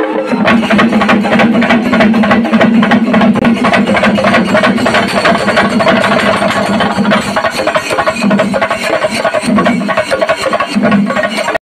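Festival drum troupe playing fast, continuous drumming amid a dancing crowd, with a steady low drone underneath that drops out briefly a few times near the end. It all cuts off suddenly just before the end.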